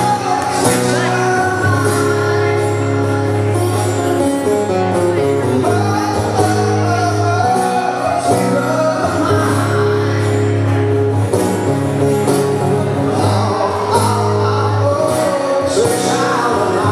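Live acoustic rock performance: two acoustic guitars playing, with singing.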